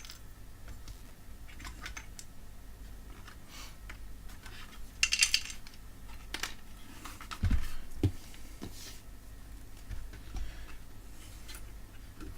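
Small metallic clinks and clicks of hands handling metal parts and tools, with a louder scrape about five seconds in and two dull knocks a little later.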